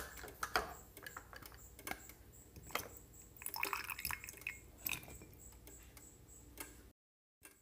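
A thin stream of liquid poured into a bowl for about a second near the middle, among scattered small clicks and knocks of handling.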